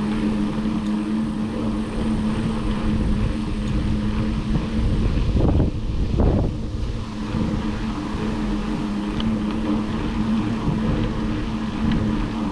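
Mountain bike riding noise: the tyres rumbling over a dirt trail and air rushing past the microphone, with a steady low hum throughout and a louder rush about six seconds in.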